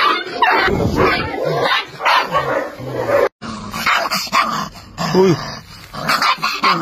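Rottweiler puppy barking in quick, repeated barks, broken by a sudden gap of a fraction of a second about halfway through.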